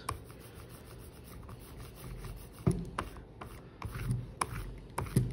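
Hand brayer rolling tacky printing ink across a carved relief block: a faint rubbing with a few light knocks.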